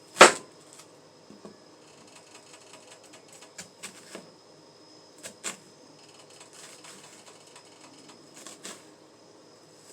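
Kitchen knife cutting into halved onions on a cutting board: one sharp knock of the blade on the board just after the start, then scattered lighter clicks and taps, several in pairs, as the onion halves are scored.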